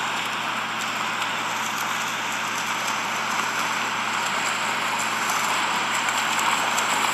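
Steady hiss of water noise with faint scattered crackles, a water sound-effect bed.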